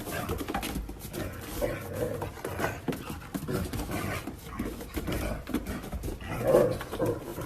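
Dogs close by making breathing and mouth noises, with many small clicks and knocks throughout and a louder burst about six and a half seconds in.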